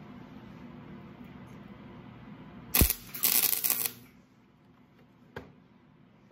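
Stick arc welder striking an arc and burning for about a second to lay a tack weld, a loud crackling buzz that starts with a sharp click. A steady low hum runs under it and stops as the arc goes out, and one short tap follows about a second later.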